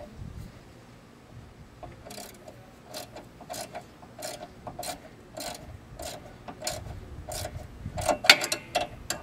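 Socket ratchet clicking in short runs, about one run every half second to second, as a nut is turned by hand. The clicking starts about two seconds in, with a louder run near the end.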